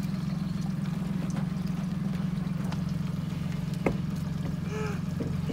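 Small outboard motor idling steadily. A single click comes about four seconds in, and a short squeak follows near the end.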